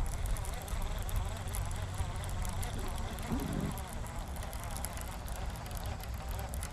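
Baitcasting reel being cranked to retrieve line, with a fine ticking throughout and wind buffeting the microphone. A short low sound comes about three and a half seconds in.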